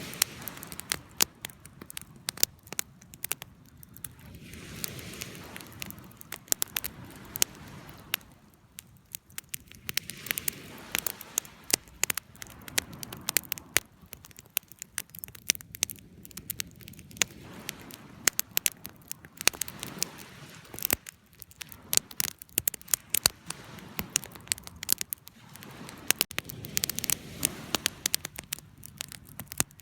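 Campfire burning: dense, irregular pops and snaps of burning wood over a soft low rumble of flame that swells and eases.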